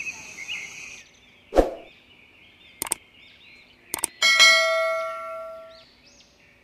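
Subscribe-animation sound effects: a few sharp clicks, a quick double click about four seconds in, then a notification-bell ding that rings and fades away over about two seconds. Faint bird chirps sound behind them.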